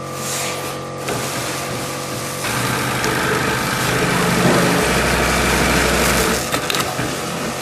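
Computerized sewing machine running as it stitches, a steady motor sound that grows louder from about two and a half seconds in and eases off near the end, with a deeper hum partway through.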